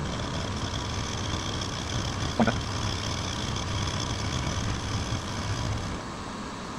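Precision Matthews PM-25MV benchtop milling machine running with a steady hum and a high whine, its cutter facing off the sawn top of a workpiece. There is a single sharp click about two and a half seconds in, and the whine eases off about six seconds in.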